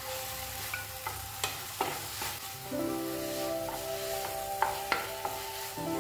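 A wooden spatula stirring and scraping a sticky grated-apple and milk-powder mixture as it fries in a non-stick pan, with a light sizzle and a run of sharp scrapes. Soft background music with held notes comes in about halfway through.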